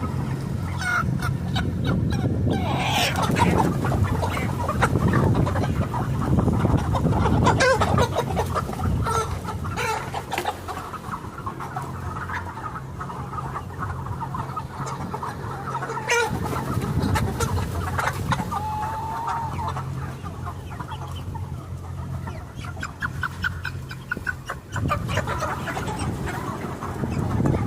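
A flock of chickens clucking and calling over one another, over a steady low hum.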